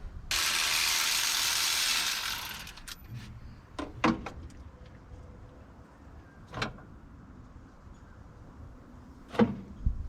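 Hands-on work on spark plugs in an engine bay. A steady hiss lasts about two seconds, then comes a scattering of short, sharp clicks and clinks from tools and parts being handled, five or so over the rest of the time.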